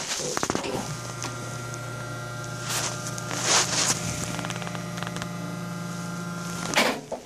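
Paper surgical drape rustling as it is handled over the face, over a steady electrical hum that starts about a second in and cuts off suddenly near the end.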